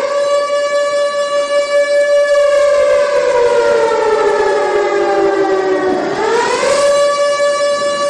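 Civil defense siren sound in a homemade mock EAS alarm: a steady tone that slides slowly down in pitch from about two seconds in, then sweeps back up about six seconds in and holds steady again.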